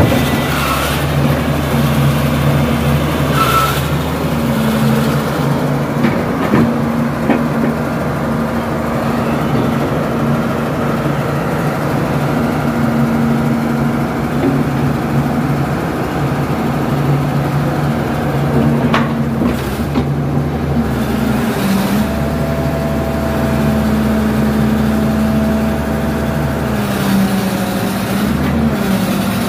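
Caterpillar hydraulic excavator's diesel engine running steadily while the machine works, its pitch dipping and rising a few times as the hydraulics take load. A thin higher whine sits over it for a few seconds in the second half.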